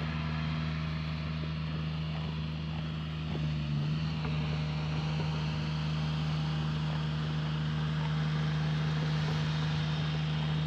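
Tractor engine running steadily at a constant speed, a low, even hum.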